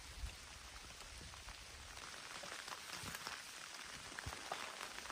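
Steady rain falling, an even hiss with many individual drops ticking on surfaces.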